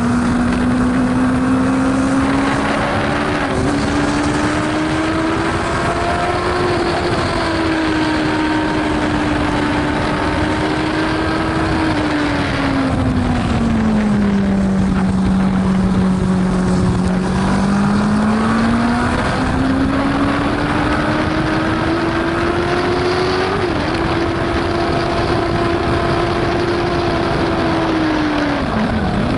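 Racing sidecar engine heard onboard at race pace over a constant rush of wind and road noise. Its note holds high, sags for several seconds about halfway through, climbs back, and dips briefly at a couple of quick gearshifts, dropping again near the end.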